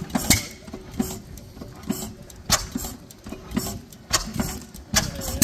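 1910 Standard vertical stationary engine running slowly, with sharp, regular beats about twice a second.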